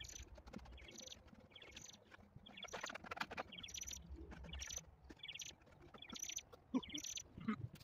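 A bird chirping repeatedly: short, high-pitched calls about once a second, faint against a low outdoor rumble.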